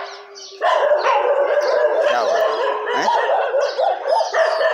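Several dogs barking and howling at once, many overlapping voices, rising to a dense, continuous chorus just under a second in.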